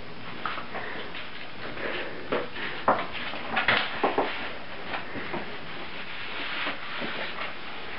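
Puppies and their mother moving about in a plastic dog bed on a tiled floor: scattered light knocks, scrapes and scuffles at irregular moments, about a dozen in all.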